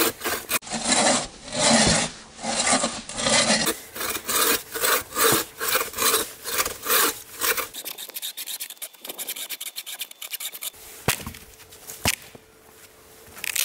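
Hand bow saw with a tubular steel frame cutting through a dead, snow-covered log, with rhythmic rasping push-and-pull strokes. The strokes grow weaker after about eight seconds and stop, and a couple of sharp knocks follow near the end.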